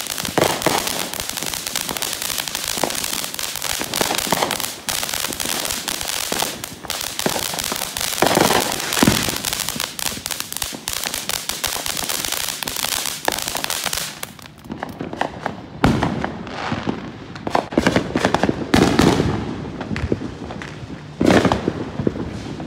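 Ground fountain firework hissing and crackling as it sprays sparks. About fourteen seconds in, the hiss stops and gives way to firework crackling and popping further off.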